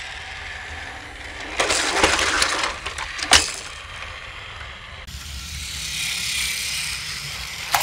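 Battery-powered toy Thomas engine running on plastic play set track: a steady motor and wheel rattle, with two louder clattering stretches and a sharp plastic click about three seconds in and another at the end.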